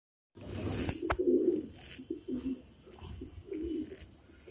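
Pigeons cooing: a few low coos, with a sharp click of handling about a second in.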